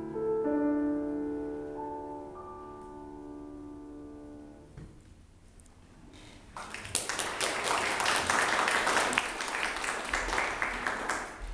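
Grand piano's final notes ringing and slowly dying away, then audience applause that starts about six and a half seconds in and continues.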